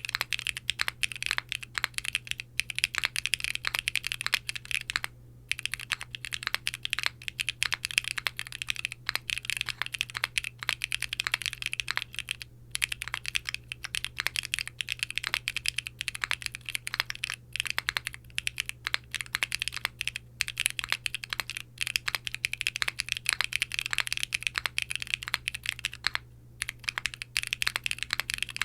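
Continuous fast typing on a Qwertykeys Neo60 Core mechanical keyboard with Wuque Studios BigLucky tactile switches in an aluminium plate, no foam, and GMK doubleshot ABS keycaps: a dense run of bright keystroke clicks with brief pauses about 5, 12 and 26 seconds in.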